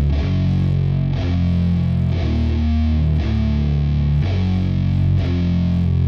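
Background rock music with distorted electric guitar, the chords changing about once a second on a sharp beat.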